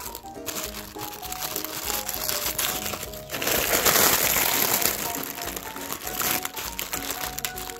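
Clear plastic bags crinkling as hands handle and move them, loudest for about three seconds in the middle. Background music plays underneath.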